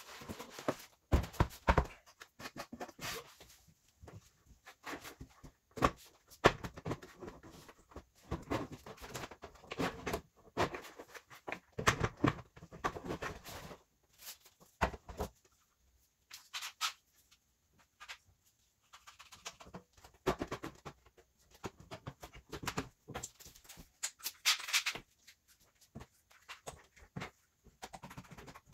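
Irregular knocks, clicks and scrapes as a painted wooden counter is handled and one-handed bar clamps are set and tightened across its frame, in bursts with short pauses between.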